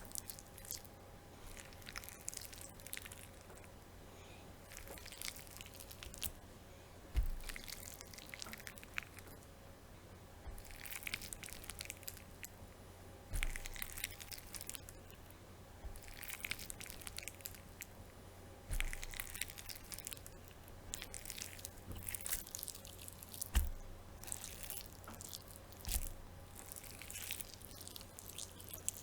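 Slimy flesh sound effect: wet squelches, squishes and smacks of flesh being chewed and devoured, coming in irregular clusters every second or two, with a few soft thuds.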